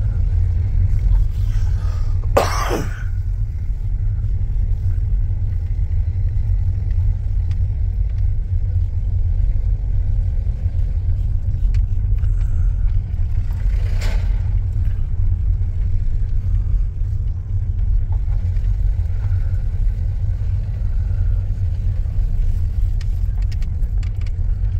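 Steady low rumble of a car driving slowly, heard from inside the cabin. A short, sharp sound comes about two and a half seconds in, and a fainter one around fourteen seconds.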